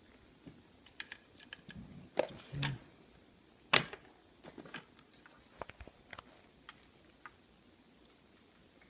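Handling noise from plastic tubing and things on a workbench: scattered light clicks and knocks, with one sharper knock a little under four seconds in.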